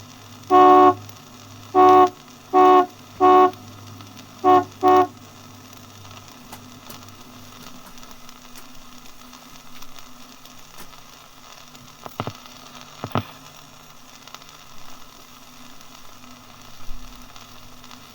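A boat's horn on a river sounding six short blasts: four evenly spaced, a pause, then a quick pair, over the low hum of the vessel's engine, which fades out about six seconds in. Record surface crackle runs underneath, with a couple of faint brief tones later on.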